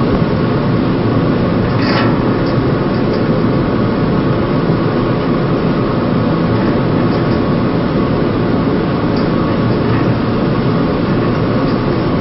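Steady, loud rumbling machinery noise of an anchor handling vessel's engines and propulsion, heard from its open aft deck, with no change through the stretch.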